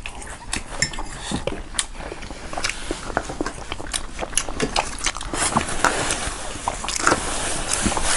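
Mouth sounds of someone eating: chewing and lip-smacking, a run of irregular small clicks and smacks.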